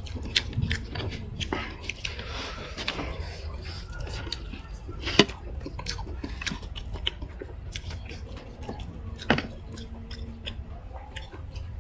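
Close-miked chewing and biting of food, with many small clicks and two sharper ones about five and nine seconds in.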